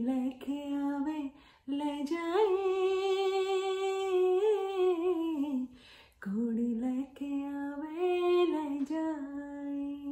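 A woman singing solo without accompaniment: long held notes with small ornamental turns and slides, sung in three phrases with short pauses between them.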